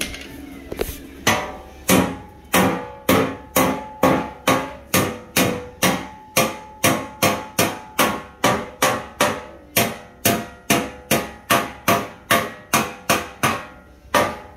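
Steady hand-hammer blows on the torch-heated, red-hot edge of a steel transmission skid plate, about three strikes a second, each with a short metallic ring. The hammering starts about a second in.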